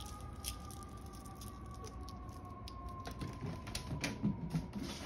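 Scattered light taps and clicks of a cat's paws and claws on a hardwood floor as it chases and bats a candy wrapper, with a few louder taps and soft thumps in the second half.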